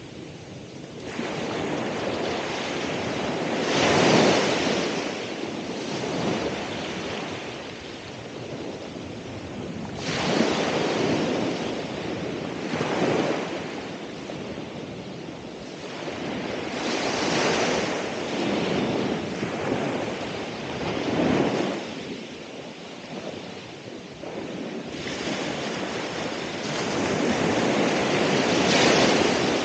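Ocean waves breaking on the shore, a steady wash of surf that swells every few seconds as each wave crashes and draws back.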